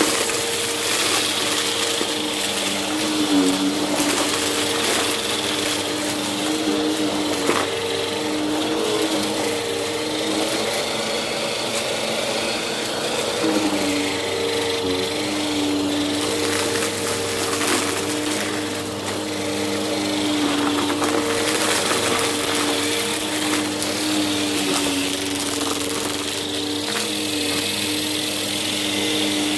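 Bissell CleanView upright bagless vacuum running over carpet: a steady motor hum whose pitch wobbles a little as it is pushed back and forth, with a light crunch and scattered small crackles as it sucks up the debris.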